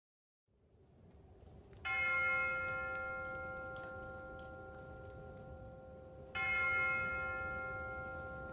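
A bell struck twice, about four and a half seconds apart, each strike ringing on and slowly fading, over a low rumble that fades in from silence just before the first strike.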